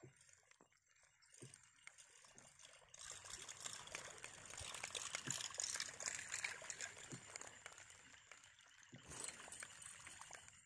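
Light water trickling and splashing, swelling in the middle and easing off near the end, as a lure is reeled across the surface toward the boat.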